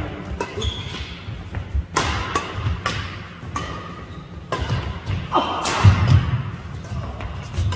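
Badminton doubles rally on a wooden court: several sharp racket strikes on the shuttlecock, with shoes squeaking and feet thudding on the floor between shots.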